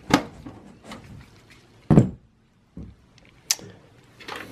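A few knocks and clicks from hands handling parts in a desktop computer case, with one heavier thump about two seconds in and a sharp click about a second and a half later.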